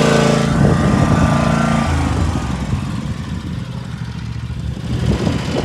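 Lawn mower engine running: an even drone at first, then uneven and a little quieter through the middle, picking up again near the end.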